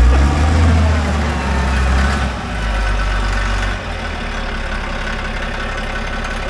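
Caterpillar 815 compactor's diesel engine working under load as the machine pushes with its blade. It runs hardest for the first two or three seconds, then eases to a steady run.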